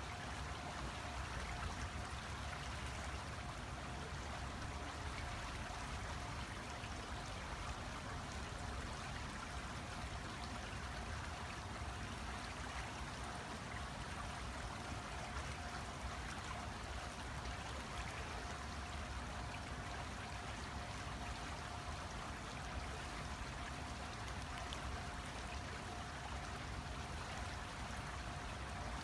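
A steady, even rush of running water, unchanging throughout, with a faint constant high tone running through it.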